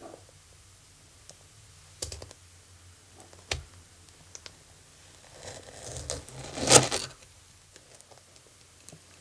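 Kitchen knife slicing a no-bake cheesecake: a few light clicks, then a crackling scrape that is loudest about seven seconds in, as the blade cuts through the graham-crumb base and meets the plate.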